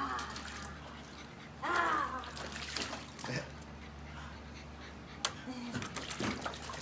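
Water splashing and sloshing in a plastic kiddie pool as bulldog puppies are set in and wade about, with scattered sharp splashes. A short high-pitched call that falls in pitch comes about two seconds in.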